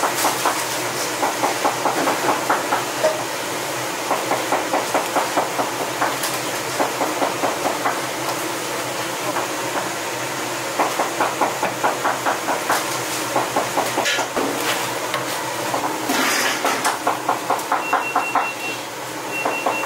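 Gloved hands mixing cut chives and scallions into wet red pepper seasoning in a large metal bowl: a rhythmic squishing and rustling at about three strokes a second, in runs of several seconds with short pauses.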